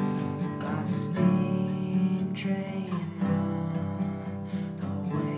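Acoustic guitar strumming chords, a few strokes spread out and left to ring.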